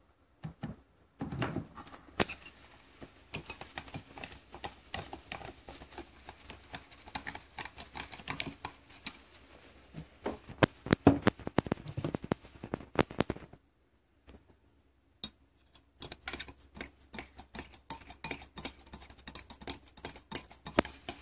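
Metal teaspoon stirring coffee in a ceramic mug, clinking and tapping against the side in quick irregular clicks, with a pause of about two seconds a little past the middle before the stirring resumes.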